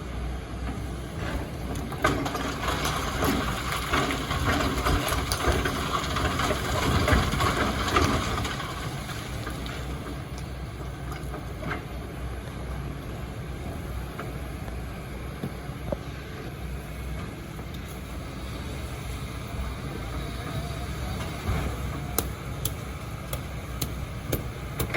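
Excavator's diesel engine running steadily, with a louder noisy stretch of scraping and knocks from about two to eight seconds in, then the engine alone with a few sharp clicks near the end.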